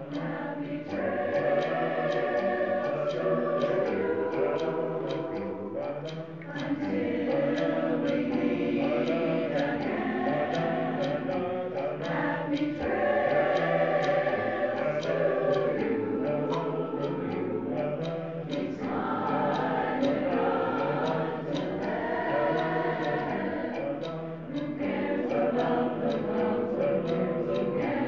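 A choir singing in harmony to a steady beat, with brief dips in the song twice.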